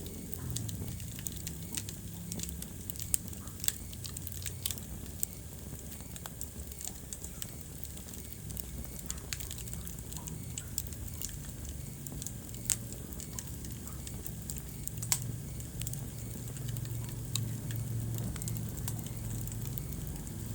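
Wood fire burning in a fireplace: irregular sharp crackles and pops over a steady low rush of the flames, with a few louder pops.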